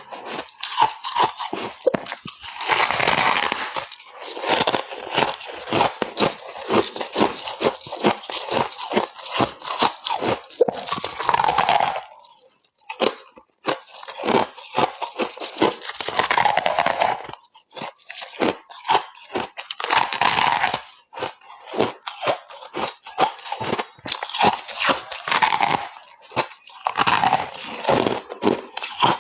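Ice being bitten and chewed close to the microphone: rapid, sharp crunches throughout, with longer grating crunches every few seconds.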